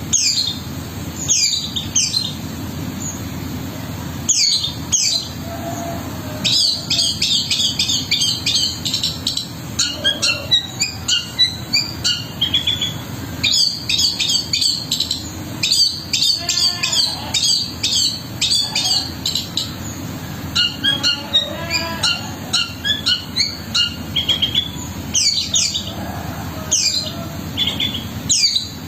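Long-tailed shrike (cendet) singing: sharp, harsh falling calls at the start and again near the end, with a long stretch of rapid, varied chattering of imitated notes in between, over a steady low hum.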